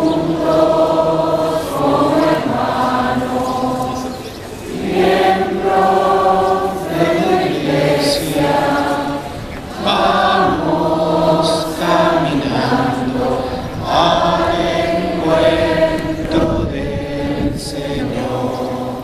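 A crowd singing a hymn together in long, held phrases with short breaks between them.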